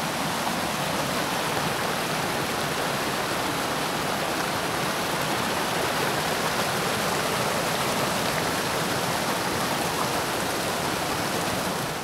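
Forest stream swollen with rainwater, rushing in flood with a steady, even roar of water.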